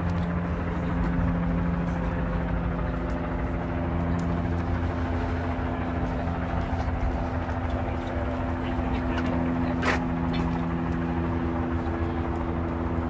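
Steady low mechanical drone with several held hum tones, as of a motor running, over an outdoor rumble; a single sharp click about ten seconds in.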